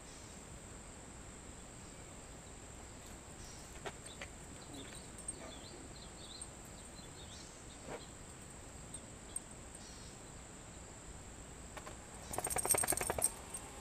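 Polaroid instant camera firing: its motor whirs with a fast, even pulse for about a second near the end, ejecting the print. Before it, a few faint clicks and faint bird chirps.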